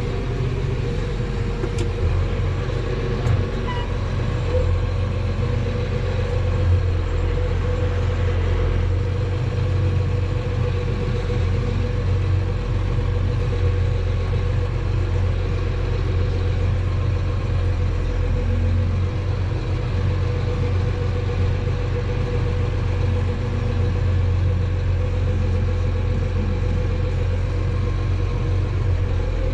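Heavy diesel engine running steadily at an even speed, a constant low drone with no change in revs.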